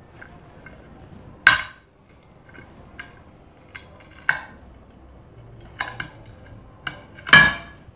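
Hand-held metal tile breaker clamped on a scored vitrified ceramic tile, giving a series of sharp clicks and clinks as it is squeezed, the loudest a ringing crack near the end as the tile snaps along the score line.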